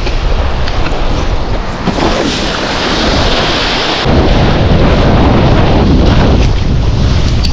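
Heavy wind buffeting a kitesurfer's action-camera microphone, with a rising hiss of rushing air while the rider is airborne. About four seconds in, the kiteboard lands and the low rumble of the board skimming choppy water, with spray, comes back suddenly.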